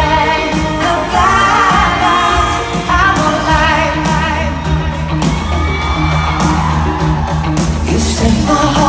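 Female pop singer performing live with a full band, heard from the audience in a large arena. Held sung notes waver with vibrato over steady drums and keyboards.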